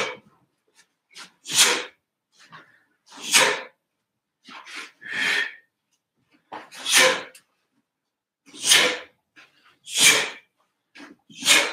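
A taekwon-do practitioner's sharp, forceful exhalations, one with each technique of the pattern, about every one and a half to two seconds, with fainter short breaths and uniform rustle between.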